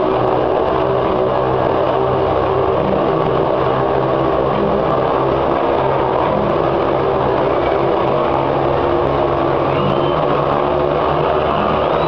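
Motorcycle engine running at a steady, loud, even pitch as the bike circles on the wall of death wheel.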